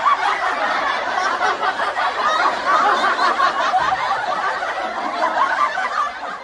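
Laugh track: a crowd of people laughing together, dying away near the end.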